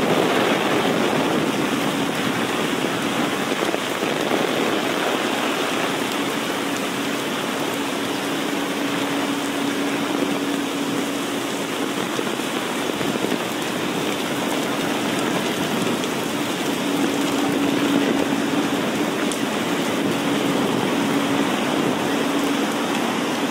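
Heavy rain falling steadily and pattering on a wet city street, a dense even hiss. A faint low hum comes and goes underneath.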